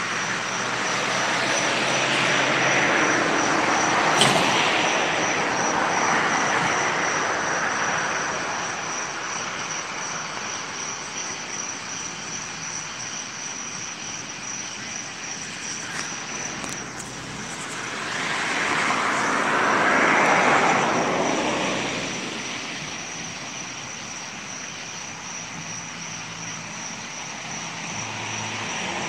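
Road traffic: two vehicles drive past, each a rush of tyre and engine noise that swells and fades over several seconds. The first peaks a few seconds in and the second about twenty seconds in. A faint steady high-pitched tone runs underneath.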